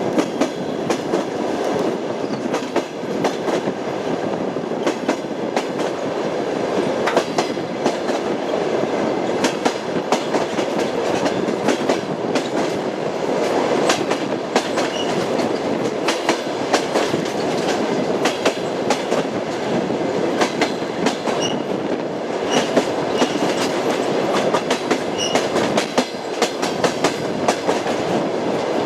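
Train wheels clacking over rail joints as a railway carriage rolls along, with a steady rumble and frequent sharp clicks. There are occasional faint high squeaks.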